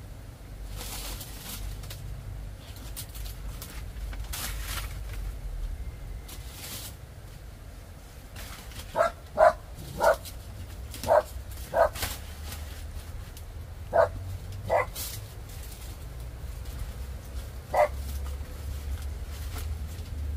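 A dog barks about eight times in short, separate barks, starting about nine seconds in. Under it is softer rustling of banana leaves being spread out.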